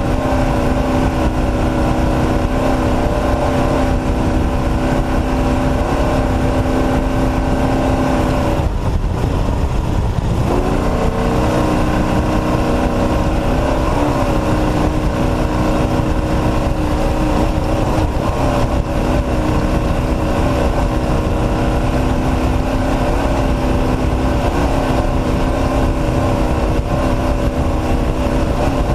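Off-road race truck's engine running hard under load, a steady multi-toned engine note over a constant noisy rumble. About nine seconds in the engine note drops away for a second or two, then comes back and climbs again.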